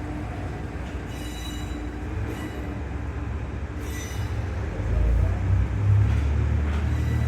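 Setsugekka diesel railcar pulling out, its engine running under a steady rumble that grows louder about five seconds in, with faint wheel squeal on and off.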